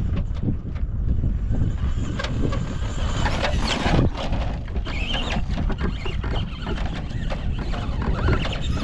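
Electric RC trucks driving over rough desert dirt: a thin motor whine and the crunch and clatter of tyres over gravel and ruts, under a heavy low rumble of wind on the microphone.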